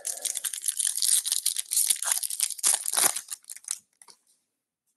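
Foil wrapper of a 2024 Topps Series 1 silver pack being torn open and crinkled by hand: a quick run of crackles that stops about four seconds in.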